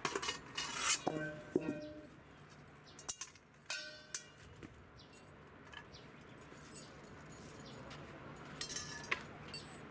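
Metal cookware clinking and clattering as pots and a lid are handled on a camp table, with one short metallic ring about four seconds in. More clinks near the end come from the wire bail handle of a pot being lifted.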